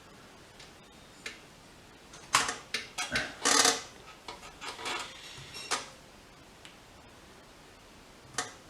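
Scattered clicks and short clatters of small hard objects being handled on a workbench, with a cluster of them a couple of seconds in and a few single clicks later.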